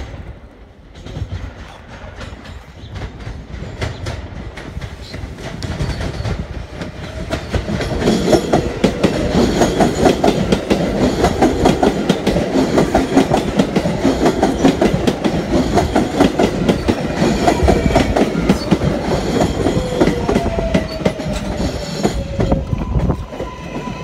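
A New York City Subway train passing close by on an open-air track, its wheels clattering rapidly over the rail joints. The clatter swells from about a third of the way in, stays loud, and drops away near the end, where a faint falling whine is heard.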